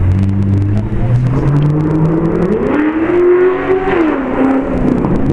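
Electric locomotive traction motors whining as the train accelerates away, the pitch climbing steadily, then dipping and levelling off near the end.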